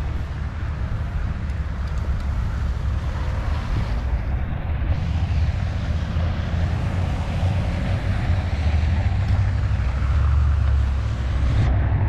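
Road traffic driving through an intersection on a slushy, snow-covered street: engines running and tyres hissing through wet slush over a steady low rumble. It grows a little louder near the end as a vehicle passes close.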